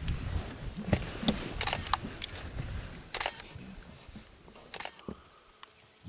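Camera shutters clicking, about eight shots spread out, some in quick runs of two or three, over a low rumble that fades away.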